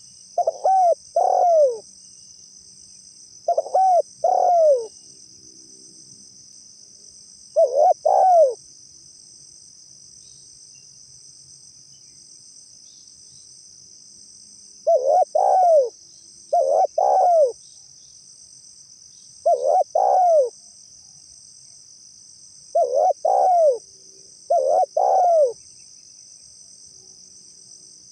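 Spotted dove (tekukur) cooing: paired coos, each note rising then falling in pitch, repeated in short groups with a pause of several seconds midway. A steady high insect trill from crickets runs underneath.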